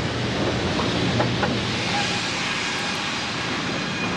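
Sawmill machinery running with a steady mechanical drone and a low hum, with a couple of light knocks about a second in.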